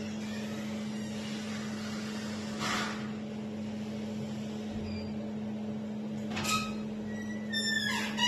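Steady low electrical hum over room noise, broken by two brief rustling noises. A cluster of short, high, pitch-sliding sounds comes in near the end.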